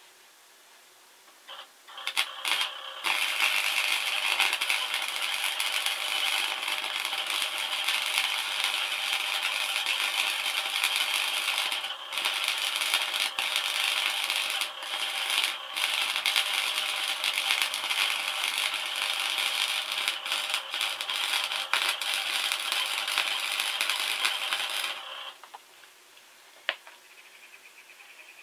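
MIG welding arc crackling and sizzling steadily, starting about two seconds in, with a few short breaks, and stopping near the end; one sharp click follows shortly after.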